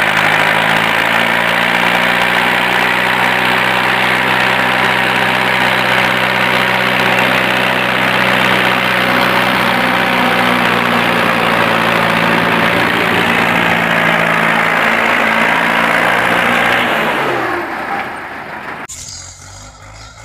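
Hindustan H 50 tractor's diesel engine running loud and steady at high revs while pulling a trolley loaded with sugarcane. After about 17 seconds the revs fall away, and near the end a cut leaves a quieter, more distant engine.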